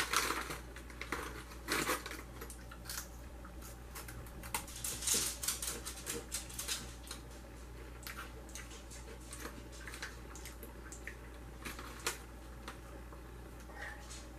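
Crinkling and rustling of a plastic snack packet being opened and handled, in short irregular crackles that thin out after about seven seconds.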